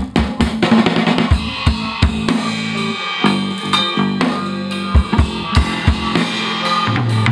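Drum kit played live, kick and snare struck in a busy groove, with a guitarist playing along in a band jam. The drumming thins out for a couple of seconds around the middle, leaving held low notes and chords ringing, then the strikes pick up again.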